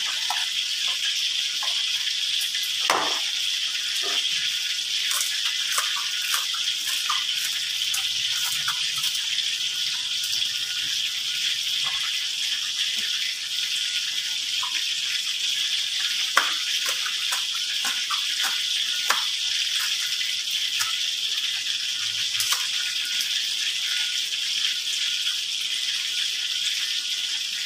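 A steady hiss with scattered light clicks and taps, as a knife cuts spring onions on a plastic cutting board.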